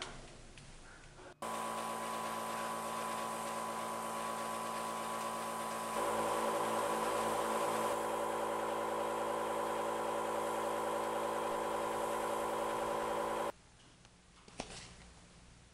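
Small airbrush compressor running with a steady hum. It starts abruptly about a second and a half in, gets louder about six seconds in, and cuts off suddenly near the end, followed by a single click.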